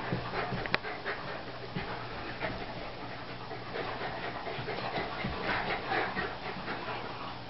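Two Bedlington terriers playing tug-of-war with a rubber toy, panting and scuffling, with a sharp tap just under a second in.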